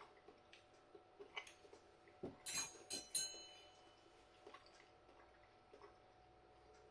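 Quiet eating sounds: light clicks and taps of cutlery as a piece of carrot is picked up and eaten, with a louder cluster about two and a half to three seconds in.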